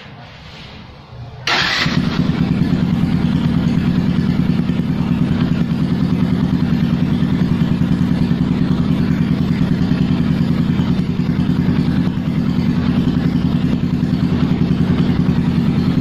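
Yamaha FZ single-cylinder motorcycle engine started with the electric starter about a second and a half in, catching at once and then idling steadily through an aftermarket exhaust with its silencer insert removed, giving a loud, even pulsing idle.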